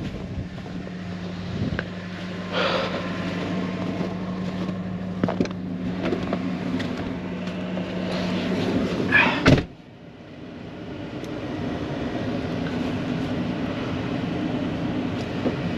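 Ford pickup truck running with a steady engine hum, broken by a few knocks and a loud thud about nine and a half seconds in. Right after the thud the hum cuts off and a softer, even noise slowly builds back up.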